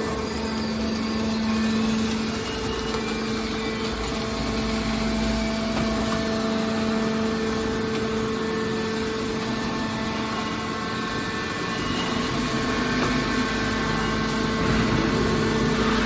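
Horizontal hydraulic metal baler's power unit running with a steady hum of several constant tones, growing slightly louder near the end.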